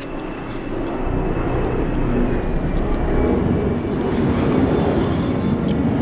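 An aeroplane flying over, a broad engine rumble that swells about a second in and holds, with a faint falling whine above it early on.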